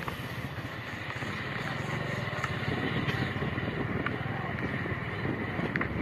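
A small vehicle engine running steadily with a fast low pulsing while riding along, a steady high-pitched tone over it and a few light knocks.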